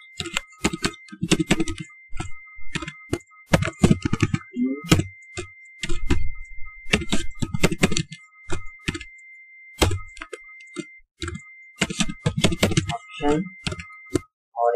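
Computer keyboard being typed on: irregular runs of keystroke clicks with short pauses between them, as HTML code is entered into a text editor.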